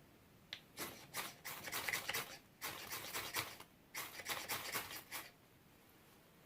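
Quick, sharp scraping strokes of a knife blade working for a fire, in three runs of several strokes each about half a second apart.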